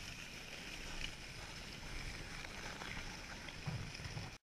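Dog sled running over packed snow: a steady rushing hiss of the runners, with faint light ticks, that cuts off abruptly near the end.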